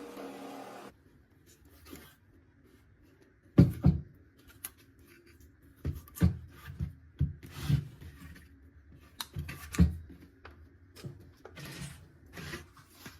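A motor running stops just under a second in. Then come irregular knocks, taps and scraping strokes of hand work on wood, two sharp knocks close together about four seconds in being the loudest.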